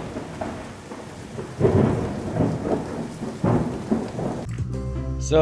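Thunderstorm: steady rain with thunder rumbling, swelling loudest about a second and a half in and again about three and a half seconds in.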